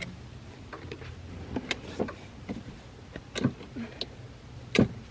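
Scattered clicks and knocks from handling wires and connectors on a battery-powered toy Jeep, over a steady low hum. The sharpest knock comes near the end.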